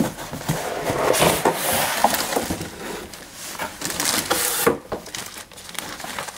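Rummaging in a cardboard box: cardboard scraping and paper rustling, with a few light knocks, as paperwork is pulled out.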